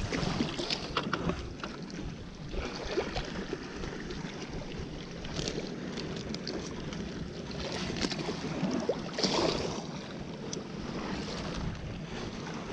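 Wind buffeting the microphone over the wash of sea water, with a few scattered small knocks and clicks.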